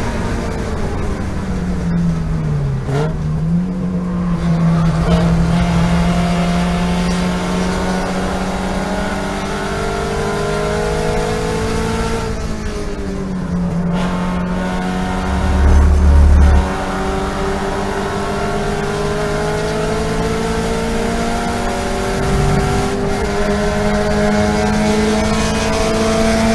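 Onboard sound of a Toyota GT86 race car's flat-four engine at full throttle. Its pitch drops twice as the car brakes and downshifts for corners, then climbs steadily as it accelerates back up through the revs. About sixteen seconds in there is a loud low rumble lasting about a second, and a shorter one comes later.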